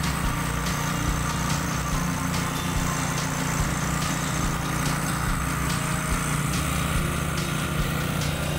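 Engine of a heavy vehicle running steadily, a constant low hum with no change in speed.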